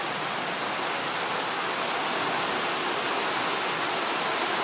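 Heavy storm rain pouring down steadily, an even hiss with no break.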